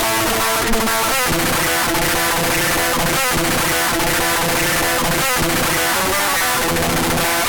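Experimental electronic music: a loud, dense wash of noise layered with sustained pitched tones and occasional sharp clicks.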